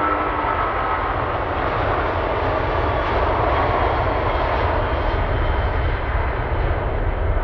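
Twin jet engines of a Boeing 777-200 running at takeoff thrust as the airliner accelerates down the runway and rotates. The engine noise is a steady, loud rush with a deep rumble, and a high fan whine fades out over the first couple of seconds.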